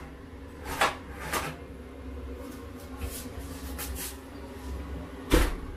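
Metal baking tray being slid out of an oven and handled: a few light clicks and clinks, then one sharp knock near the end. A kitchen extractor hood hums steadily underneath.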